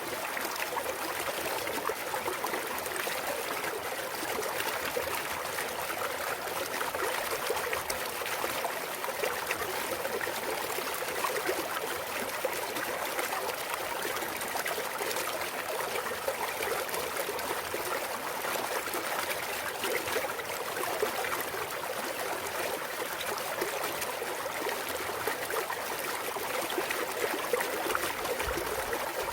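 Clear water of a valley stream flowing and trickling, a steady, even rush of running water.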